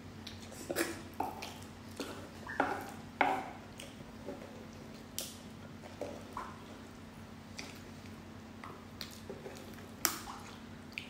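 Close-miked eating sounds: scattered small clicks, crackles and wet mouth sounds as cooked prawn shells are picked apart by hand and the meat is chewed, with a wooden spoon now and then scraping the wooden board. A faint steady hum lies underneath.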